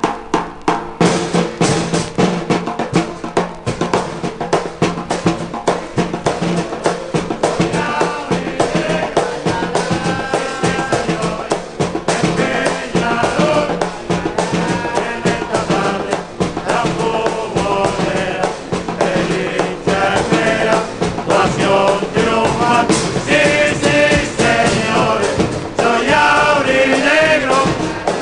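Music with a steady drum beat; a wavering melody line comes in about eight seconds in.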